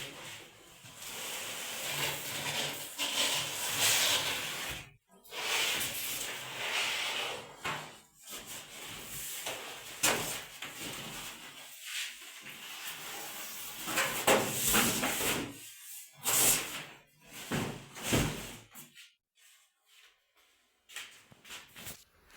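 Packaging on a new refrigerator being handled and pulled open: repeated bursts of rubbing, scraping and rustling, dying down near the end.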